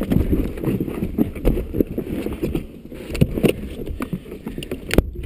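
Rustling with irregular knocks and clunks as the rally crew move about in the stopped car and loosen their harness belts to climb out, with no engine running, and a sharp click near the end.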